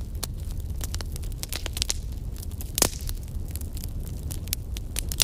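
Crackling fire sound effect: a steady low rumble with irregular snaps and pops, one louder pop about halfway through.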